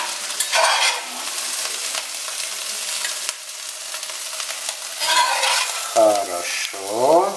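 Metal spatula scraping and scooping fried vegetable filling from a wok, with a steady sizzle from the hot pan underneath. The scrapes come loudest just after the start and again about five seconds in.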